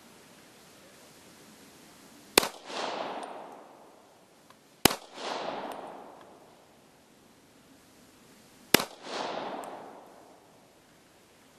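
Steyr Hahn M1912 semi-automatic pistol firing handloaded rounds: three single shots, the second about two and a half seconds after the first and the third about four seconds later. Each shot is followed by an echo that dies away over about a second and a half.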